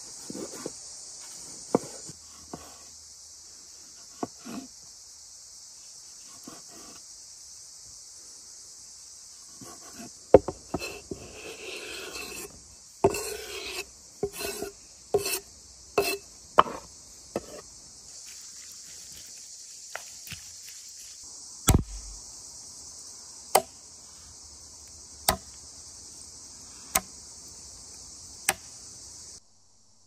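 Knife dicing tomatoes on a wooden cutting board: sharp knocks of the blade on the board, with a flurry of quick cuts in the middle and single strokes about every second and a half near the end. A steady high chirring of insects runs underneath.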